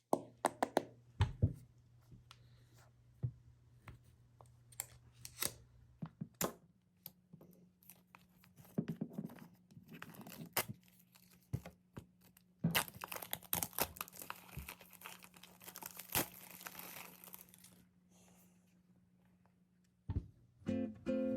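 AirPods Pro packaging being unboxed by hand: scattered clicks and taps of the box being handled, and a few seconds of tearing and crinkling of the wrapping about halfway through.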